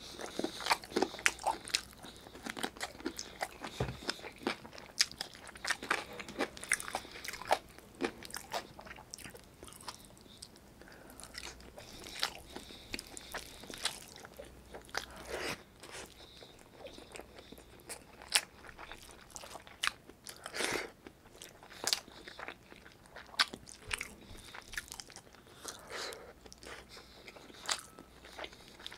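Close-miked chewing of braised chicken adobo and rice eaten by hand: irregular wet mouth clicks and bites, one after another.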